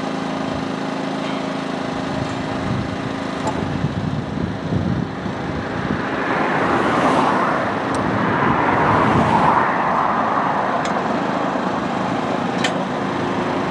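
Road traffic on the bridge: a lorry and other vehicles pass, their tyre and engine noise swelling from about six seconds in and easing again near the end, over a steady low hum. A few faint clicks sound through it.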